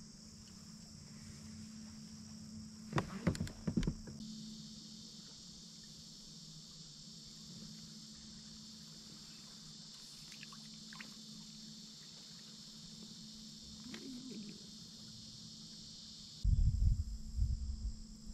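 Insects buzzing steadily in a high chorus. A second, lower buzz joins about four seconds in and stops near the end. A few knocks come about three seconds in, and loud rumbling bumps start near the end.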